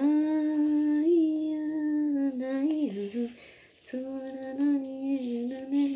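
A woman singing a slow melody without words in long, held notes. There are two phrases, with a short break about three and a half seconds in.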